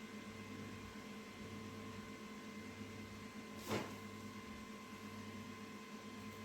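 Steady electrical mains hum from equipment in the room, with one short sharp click about three and a half seconds in.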